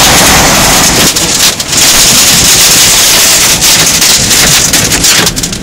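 Hurricane-force bora wind buffeting the car and the microphone in a loud, steady rushing noise. Clusters of sharp ticks come about a second in and again near the end, as flying stones and grit strike the car.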